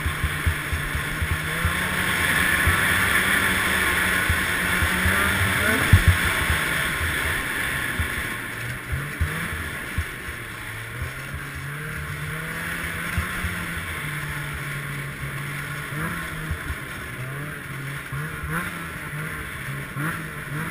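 Ski-Doo Summit X snowmobile's two-stroke engine running under way on a snow trail, its pitch rising and falling with the throttle, with a hiss of track and snow noise and scattered knocks from bumps. It is loudest in the first few seconds and has one sharp jolt about six seconds in. It eases off somewhat in the second half.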